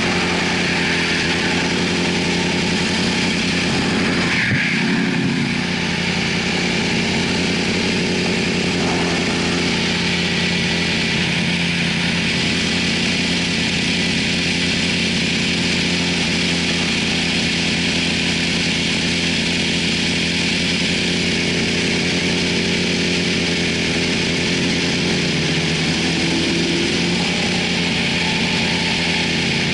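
Yamaha YZF-R6 sport bike's inline-four engine idling steadily while stopped.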